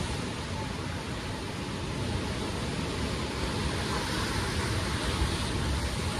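Steady rush of river rapids and surf, with wind buffeting the microphone in an uneven low rumble.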